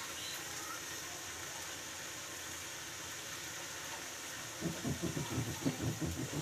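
Steady hiss of a gas stove burner under a metal kadai of curry cooking. About four and a half seconds in, a spatula starts stirring in the kadai, giving a quick run of low knocks and scrapes.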